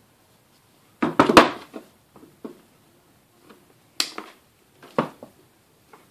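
Handling knocks and clicks on a workbench, then side cutters snipping through a laptop power supply's DC cable with a sharp click about four seconds in, followed by another click a second later.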